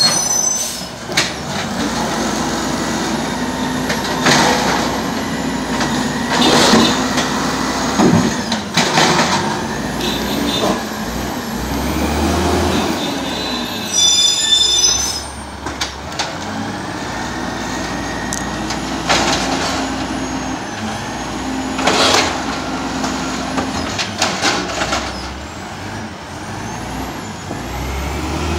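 Automated side-loader garbage truck running its diesel engine on its collection route, stopping and moving on, with repeated sharp hisses of its air brakes and a brief high squeal about halfway through.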